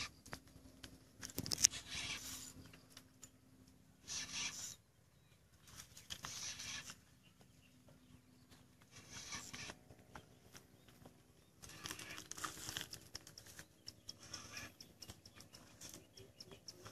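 Fishing reel whirring in short bursts every two to three seconds while a hooked arapaima is played on a hard-bent rod.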